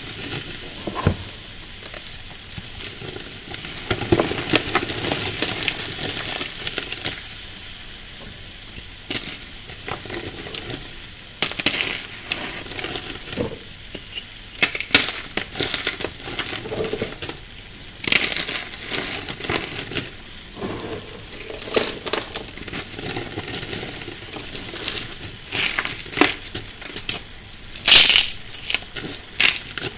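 Hands squeezing and crushing crumbly pink-dyed chalk and loose chalk powder: a soft, continuous powdery hiss, the 'foamy sizzle', broken again and again by sharp crunches as chunks break apart, the loudest crunch near the end.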